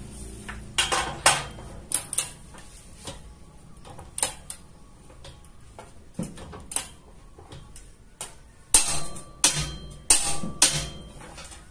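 Click-type torque wrench set to 300 Nm tightening a steel bolt: irregular sharp metallic clicks and knocks from its ratchet head, with a louder cluster of clicks near the end.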